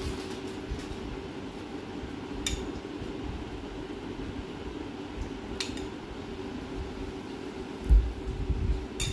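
A utensil spreading cream over custard in a glass baking dish, with a few sharp clinks against the glass about three seconds apart and a dull thump near the end, over a steady background hum.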